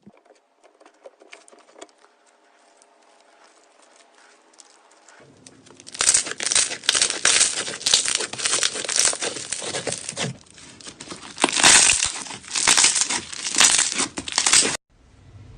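Clear 'liquid glass' slime being squeezed and worked by hand, making dense crackling and crinkling. It is faint at first, turns loud about six seconds in, and cuts off suddenly near the end.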